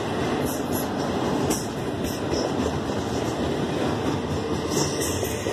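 Double-stack container well cars of a Union Pacific intermodal train rolling past close by: a steady rumble of steel wheels on rail, with brief high-pitched wheel squeals now and then.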